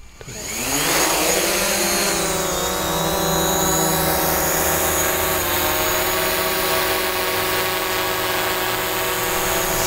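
DJI Mavic Pro quadcopter with Startrc LED low-noise propellers lifting off: the motors spin up over about the first second, then settle into a steady propeller buzz while it hovers.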